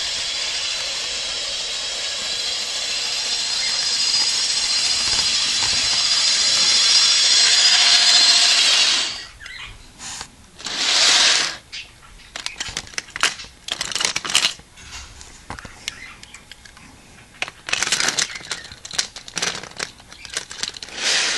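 Bachmann electric model locomotive running around its track pulling a train of cars: a steady high motor whine over wheel and rail noise, slowly getting louder, that stops abruptly about nine seconds in. After that come scattered light clicks and clacks of plastic model wagons being handled on the track.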